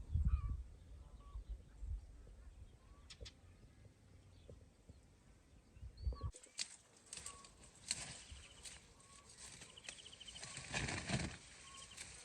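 Quiet outdoor sound with scattered short bird chirps. From about halfway through come repeated dry crackling and rustling sounds.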